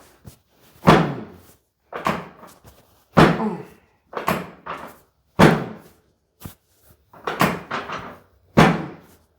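A series of about eight sharp thuds, roughly one a second, from a chiropractic adjustment on a treatment table: repeated thrusts or table drops striking the patient's body and the table.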